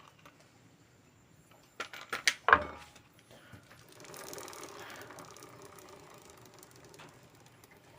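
A few sharp metal clicks and knocks about two seconds in. From about four seconds there are some three seconds of steady, fast mechanical ticking, like a ratchet or gears turning.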